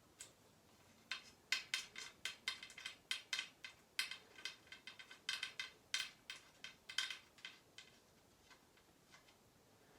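Quick run of light, sharp metallic clicks, irregular at a few a second and dying away near the end, as the small lock nut is screwed down onto a road bike inner tube's valve stem against the wheel rim.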